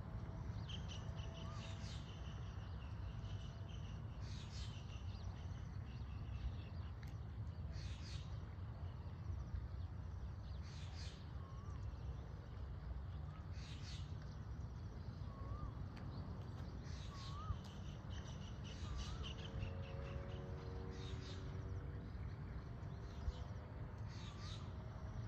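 Birds calling again and again, short high calls every second or two with small chirps between them, over a steady low rumble of outdoor ambience. A few faint steady tones join near the end.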